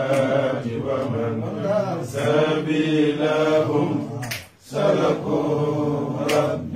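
Chanting voices, sung steadily in long held phrases, breaking off briefly about four and a half seconds in before resuming.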